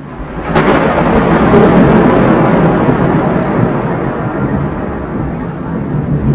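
Thunder: a sharp crack about half a second in, then a loud rumble that slowly fades.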